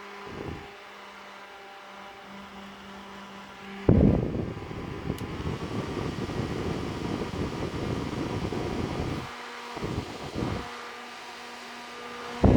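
Onan Korea N9-FAN electric fan running with a steady motor hum. Its airflow hits the microphone as a loud wind rumble from about 4 s to 9 s, with two short puffs near 10 s and another at the end. The hum sits at a higher pitch after the rumble.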